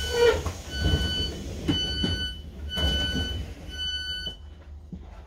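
Train door-closing warning beeps: four high beeps about a second apart, each about half a second long, over a steady low hum from the carriage, with a few knocks in between.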